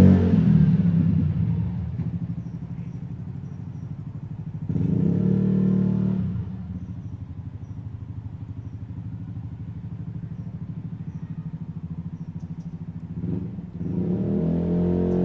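Honda S-Wing 125 scooter's single-cylinder engine running through a Turbo Kits exhaust with the baffle removed, as the scooter rides away along the road. The engine sound fades, swells for a second or so about five seconds in, then grows louder again near the end as it comes back.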